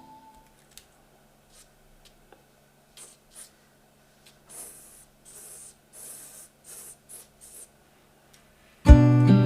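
Drawing strokes on paper: a run of short, faint scratches, with a few longer strokes in the middle. Instrumental music fades out at the start, and acoustic guitar music comes in loudly near the end.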